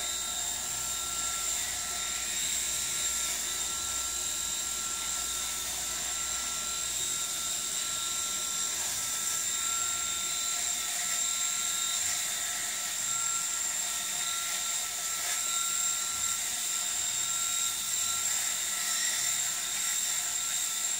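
Electric shaver running with a steady whine, held against a man's chin and jaw to cut his beard.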